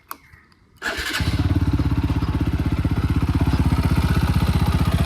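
A TVS Apache RTR 200 4V's single-cylinder engine, after a click, is started about a second in and settles into a steady, evenly pulsing idle. The owner is demonstrating a light tick from the top of the engine, which he says grows much louder after 10–15 km of riding.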